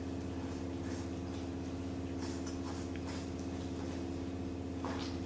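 A steady low hum with a few faint, soft clicks scattered through it.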